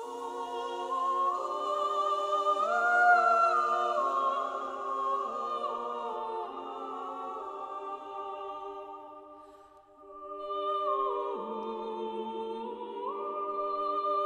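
Women's chamber choir singing a cappella in eight high parts: sustained chords that move by step, dying away just before ten seconds in and coming back in with a fresh chord.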